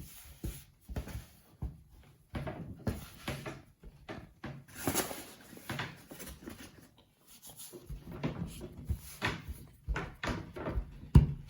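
Dumpling dough being worked and pressed by hand on a floured countertop, giving irregular soft thumps and knocks, with a sharper knock about a second before the end.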